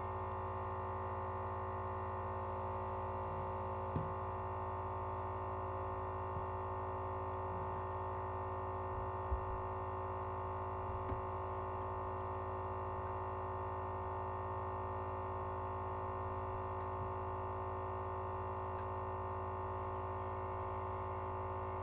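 Nebulizer air compressor running with a steady electric hum, driving air through the tubing to turn the liquid medicine into mist. A few faint clicks come through it.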